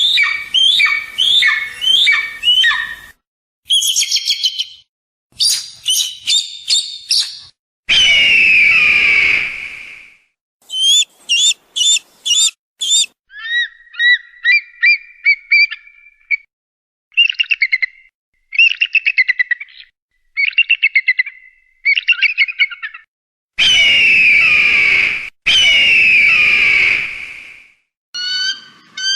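Hawk calls played one clip after another: runs of short, sharp repeated notes and fast chattering, broken up by long, hoarse, descending screams, one about eight seconds in and two near the end.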